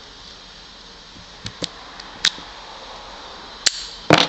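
Metal clicks from a Master Lock padlock being picked with a hook pick and tension wrench: a few separate light clicks, then a louder clack near the end.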